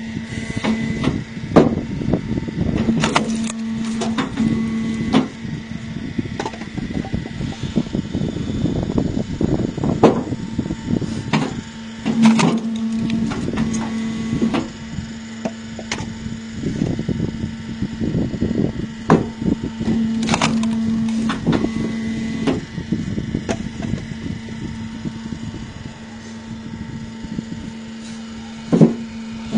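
Log-splitting machine running with a steady motor hum, with repeated knocks and cracks of wood as logs are split.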